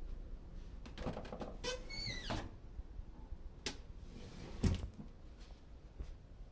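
Closet door being opened, with a short squeak from the door shortly after two seconds, then a couple of light clicks and a low knock.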